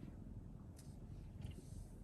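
Domestic cat purring faintly, heard as a low steady rumble, with a couple of soft ticks about a second in and again near the end.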